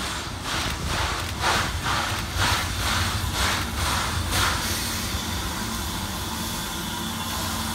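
JNR Class C56 steam locomotive C56 160 working under steam, its exhaust chuffing about twice a second. The chuffs stop about four and a half seconds in, leaving a steady rumble and hiss of the train rolling.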